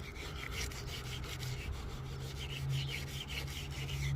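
Wire brush scrubbing back and forth through grime wet with cleaning solution, a quick run of scratchy strokes, several a second. A steady low hum runs underneath.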